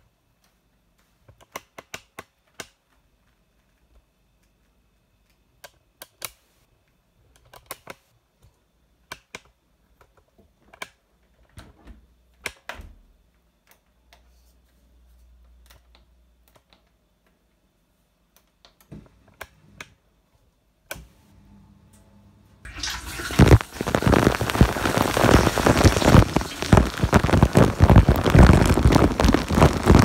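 Beko dishwasher: scattered clicks and knocks as it is closed and its control buttons are pressed. About 23 seconds in, a loud, dense rush of water from the wash jets starts, heard from inside the machine as the spray hits the racks and the potatoes in them.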